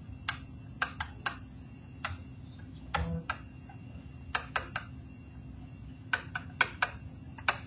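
Irregular sharp taps and clicks of a pen stylus striking a digital writing surface as handwriting strokes are made, over a faint steady hum.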